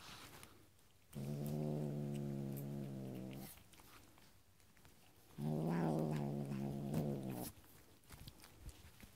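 A cat giving two long, low, drawn-out yowls, each about two seconds, with a pause of about two seconds between them.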